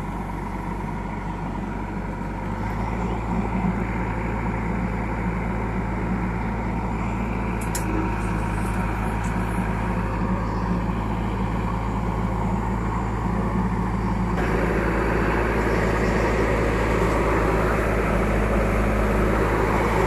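JCB backhoe loader's diesel engine running steadily as the hydraulics work the backhoe arm. The sound grows gradually louder, and about two-thirds of the way through it becomes louder and busier as the machine comes under more load.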